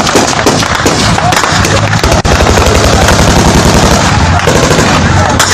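Loud automatic gunfire in close, overlapping bursts, with a fast, even stream of machine-gun shots about two seconds in.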